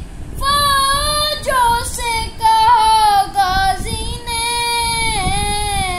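A young boy singing solo with no accompaniment, in a high voice, holding long notes that bend and slide between pitches.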